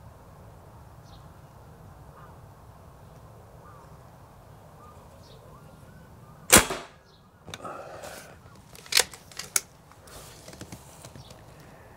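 A single shot from a Kral Arms Empire XS .22 PCP bullpup air rifle about six and a half seconds in: one sharp crack with a short ring after it. A couple of seconds later come two sharp clicks close together as the side lever is worked to chamber the next pellet, with fainter rattles around them.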